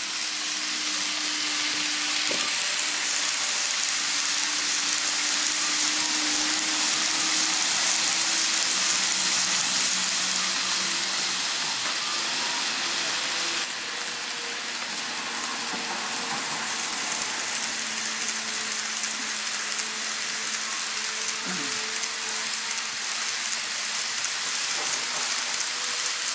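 N-gauge model train, an electric locomotive hauling blue sleeper coaches, running on the layout track: a steady rushing hiss of the wheels on the rails, with a faint low motor hum underneath.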